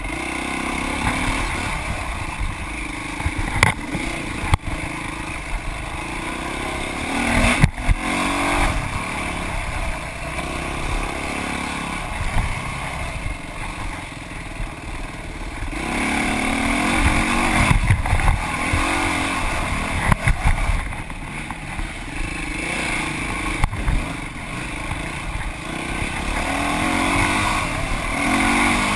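Dirt bike engine being ridden hard, revving up and down as the throttle is opened and closed, with a few sharp knocks over the rough trail.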